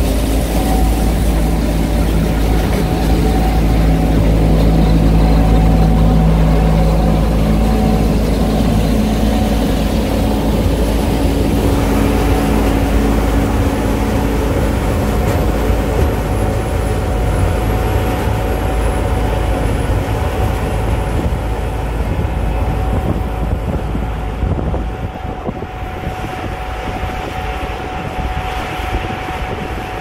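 Gleaner S77 combine running under load as it picks up and threshes swathed oats: a loud, steady machine drone with a low engine rumble and a constant whine. The sound grows fainter in the last few seconds as the combine moves away.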